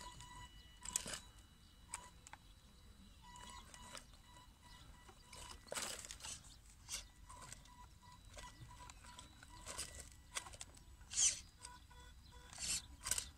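Faint sounds of a WLtoys 12428 RC crawler working over loose rock: a thin whine from its electric drive that keeps cutting in and out, and several short crunches of its tyres on gravel and stones, the loudest about 11 s in.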